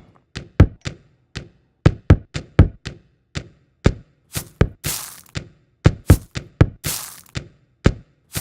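A found-sound beat: short recorded thunks and knocks cut together into a quick, regular rhythm, with a few longer hissing hits standing in for a snare, and dead silence between the hits.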